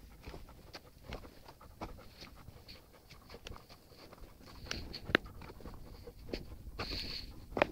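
Horse grazing close by, tearing and cropping grass with its teeth: irregular crisp rips and crunches, with a sharp louder snap about five seconds in and another near the end.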